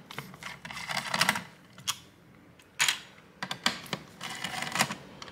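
Screwdriver backing out the screws of a motherboard's stock AM5 CPU-cooler retention brackets: small clicks and scrapes in short bursts, with a brief lull about two seconds in.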